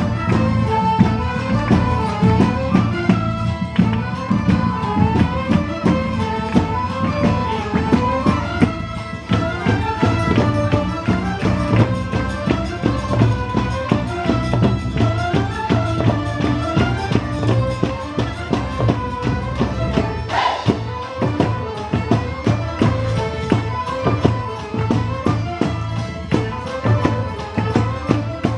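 Live folk ensemble playing a fast traditional dance tune: several fiddles carry a quick, running melody over a steady drum and tambourine-like percussion beat.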